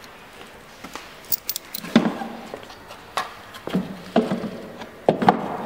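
A plastic seat lid on a coin-operated animal ride-on car being handled and shut by hand: a string of separate knocks and thuds, the loudest about two seconds in and near the end.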